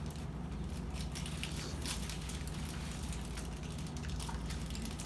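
Close-up eating sounds: food being chewed and crunched, heard as a run of small crisp clicks over a steady low hum.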